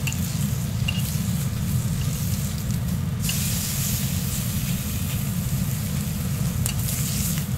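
Bacon strips sizzling on a hot flat-top griddle, the sizzle growing louder twice as the strips are moved about with tongs, over a steady low hum.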